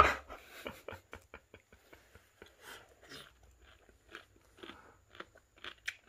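Someone chewing a mouthful of blanched, seasoned jinjeori seaweed salad: a run of faint, irregular crunches, after one sharp click at the start.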